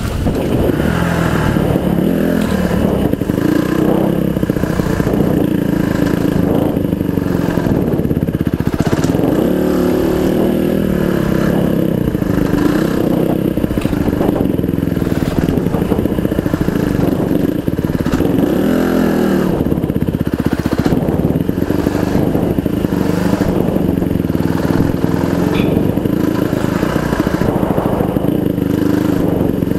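Honda CRF150R four-stroke single-cylinder dirt bike engine under way, its pitch rising and falling again and again as the throttle opens and closes, heard close up through a helmet-mounted microphone.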